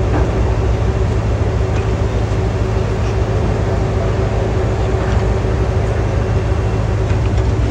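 Heavy diesel earth-moving machinery running steadily: a deep, even engine drone with a constant hum, and a few faint knocks.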